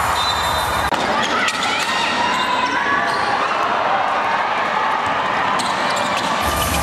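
Basketball game sound in an echoing gym: a crowd of voices calling and shouting, with a basketball bouncing on the court.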